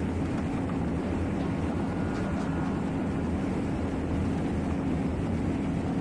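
Yamaha 275 outboard on a Triton 21XS bass boat running steadily at full throttle as the boat nears its top speed of about 108 km/h. Hull and water noise blend into an even rush.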